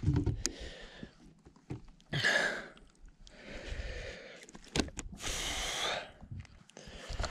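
Handling noises as a just-caught fish is unhooked in a kayak: a few sharp knocks and clicks and two brief rustling, hissing bursts, the second and longer one about five seconds in.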